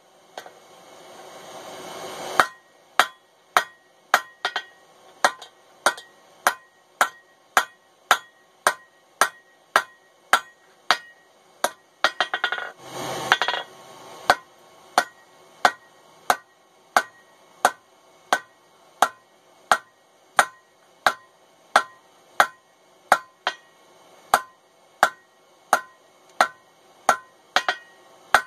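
A blacksmith's hand hammer strikes a red-hot mild steel tong blank on the anvil in a steady run of blows, about three every two seconds, each with a short ring. There is a rustling noise in the first two seconds and again about halfway through.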